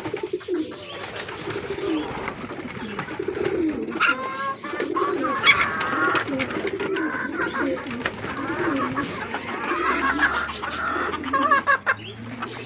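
Several homing pigeons cooing continuously, with low, wavering coos overlapping one another.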